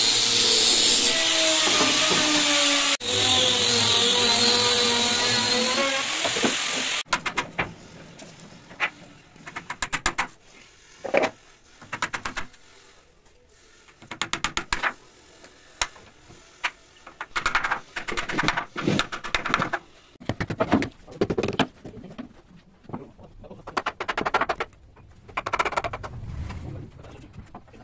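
Electric hand planer running with a loud steady whine, cutting off sharply about seven seconds in. It is followed by irregular hammer blows knocking on wooden bed-frame parts, some single and some in quick runs.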